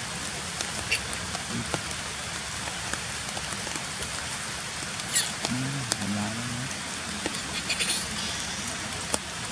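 Steady rain hiss with scattered sharp clicks, and a person's low voice briefly about five and a half seconds in.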